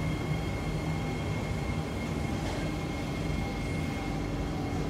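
Inside a Kawasaki–CRRC Sifang C151B metro train: the steady rumble of the running train, with a constant high tone and a low hum over it.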